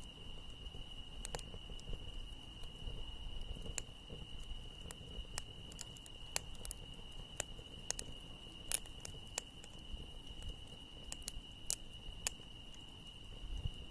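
Wood campfire crackling, with sharp pops at irregular intervals, over a steady high-pitched chorus of insects singing.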